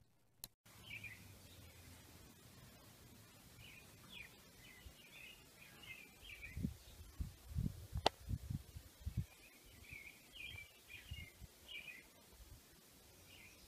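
Small birds chirping in short bursts on and off over steady outdoor background noise. Around the middle there is a run of low thumps, with one sharp click about eight seconds in, the loudest moment.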